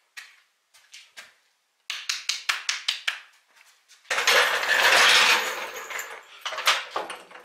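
Metal clinking and clattering from a steel floor jack being handled on a concrete garage floor: a quick run of sharp clicks, then a loud rattling scrape for about two seconds in the middle, then a few more clinks.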